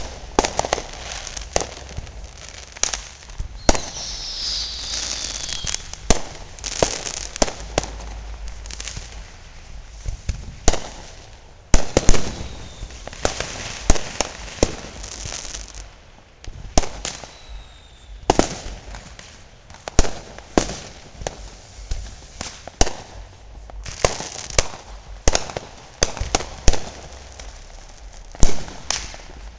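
Consumer fireworks and firecrackers going off all around: irregular sharp bangs, some loud and some fainter, with crackling between them and a few whistles gliding down in pitch. The loudest bangs come about twelve seconds in and again near the end.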